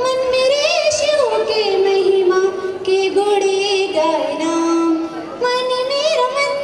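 A woman singing solo into a microphone, a slow melody of long held notes with vibrato that step down in pitch and rise again near the end.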